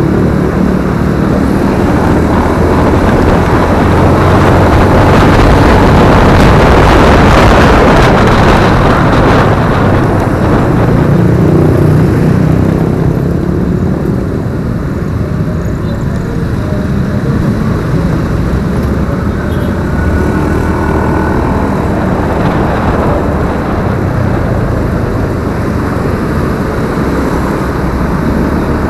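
Honda automatic scooter being ridden through city traffic: the engine running with steady road and traffic noise, loudest about 4 to 12 seconds in and then easing.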